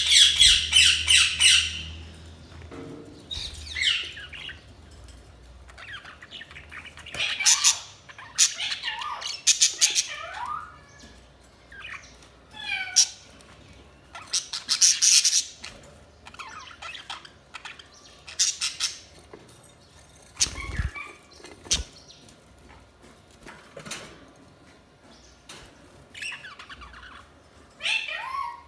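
Budgerigars chirping and squawking in short bursts of rapid, warbling calls, with the loudest run of quick chirps at the start. A brief low thump comes about two-thirds of the way through.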